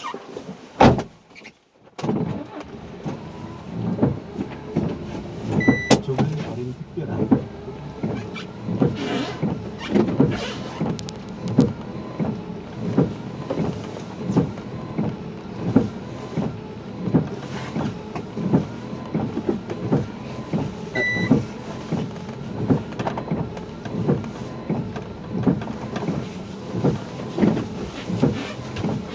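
A motor vehicle running with a dense, irregular rattling and knocking. Two short high beeps sound, one about six seconds in and one about twenty-one seconds in.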